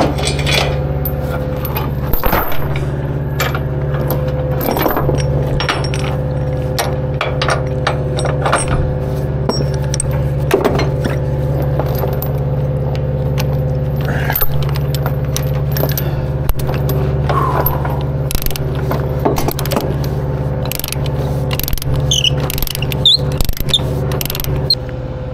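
Metal tie-down chain and hardware clinking and clanking in irregular short knocks as a load is chained down, over an engine idling steadily underneath.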